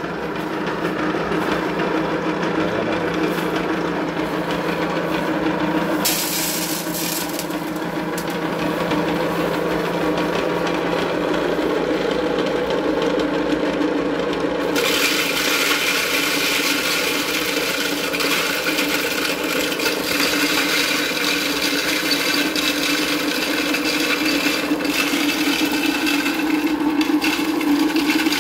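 Portable electric dry-mill grinder running steadily with a low hum, its cast-iron grinding head milling cracked corn with a gritty rasping noise. About fifteen seconds in, the grinding grows louder and hissier as the feed gate is opened further.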